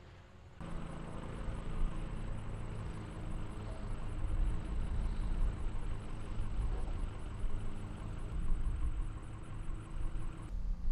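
An engine running steadily with a low rumble. It starts abruptly about half a second in and cuts off just before the end.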